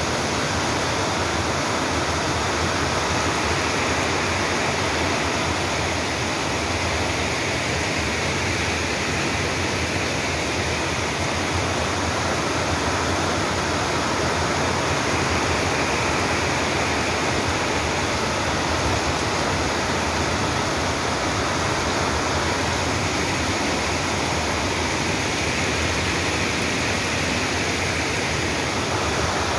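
Heavy rain pouring down steadily, a dense even hiss that neither builds nor breaks.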